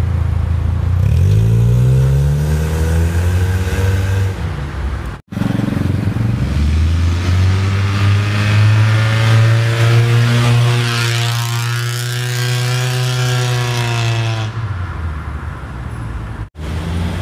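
Nissan Teana 2.0 with a custom stainless-steel Y-pipe straight-pipe exhaust, the engine revving and accelerating away, its exhaust note climbing in pitch. There are two abrupt cuts, and in the long middle stretch the note swells and then eases off.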